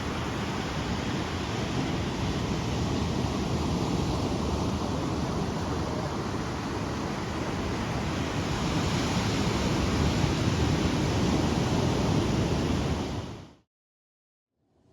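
Ocean surf: waves breaking and washing on a beach, a steady wash of noise that swells and eases, then cuts off suddenly near the end.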